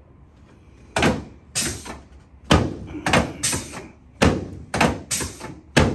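Chiropractic drop-table sections dropping under quick thrusts on the pelvis: about ten sharp thuds, irregularly spaced, starting about a second in.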